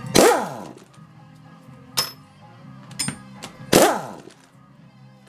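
Impact wrench on a long socket extension spinning out the bolts at the rear of a manual transmission case. It goes in short bursts, the loudest about a fifth of a second in and near four seconds in, and each one winds down in pitch as the trigger is let go.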